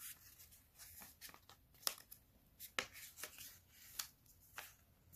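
A sheet of origami paper being folded in half and creased by hand: faint rustling with scattered short crisp clicks as the fingers press the fold flat.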